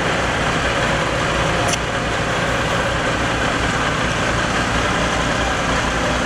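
Heavy diesel engine of a construction crane running steadily with a low rumble under the lift. A short click sounds a couple of seconds in.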